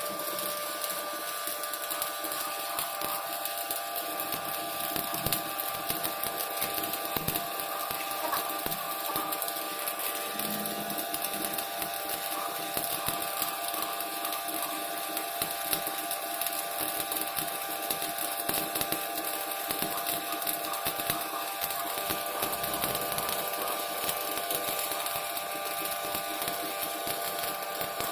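Shielded metal arc (stick) welding arc crackling steadily as the first capping layer is run on a carbon steel pipe with an E6013 electrode, over a steady hum.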